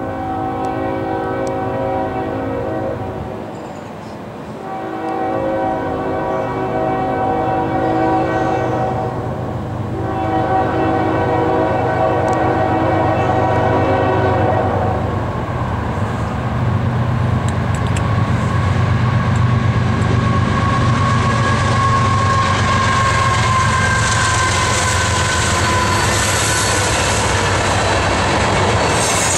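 Union Pacific diesel freight locomotive sounding its multi-note air horn in three long blasts, then passing close by with the engine's low drone and the clatter of wheels on rail, growing louder toward the end.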